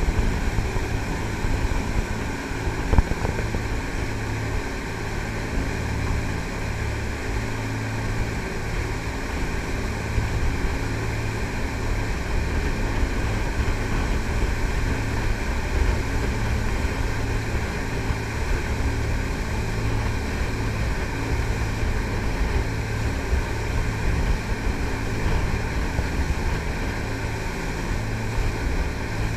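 A triple-diesel jet boat running steadily under way, its engines a low, even drone under the rush of water and wind. A brief knock sounds about three seconds in.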